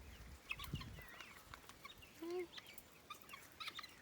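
Free-range chickens clucking quietly, with many short high calls scattered through and one brief lower call a little after two seconds in.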